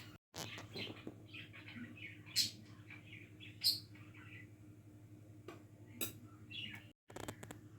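Small birds chirping repeatedly, with two sharp, louder high chirps about two and a half and three and a half seconds in, over a faint steady low hum. The sound cuts out completely for a moment just after the start and again near the end.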